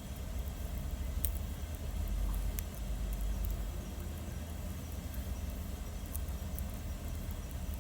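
Wood bonfire burning, with a few sharp crackles and pops, clearest about a second and two and a half seconds in, over a steady low rumble.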